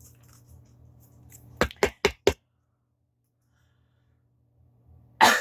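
Four quick sharp knocks a little under two seconds in, then a short, loud rush of noise near the end.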